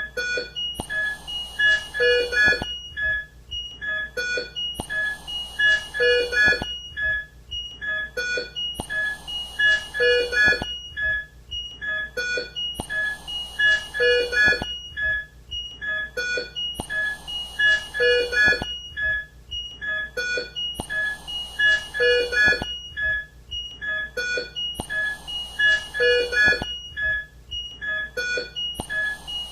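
Intensive care unit equipment sounds: patient monitor beeps and alarm tones in a steady pattern that repeats about every four seconds, with a short hiss of air in each cycle from a mechanical ventilator.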